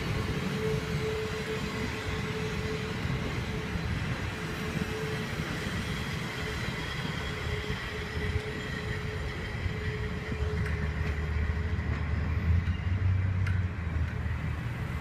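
Train rolling by with a steady rumble and a faint high squeal; a deeper low rumble grows louder about ten seconds in.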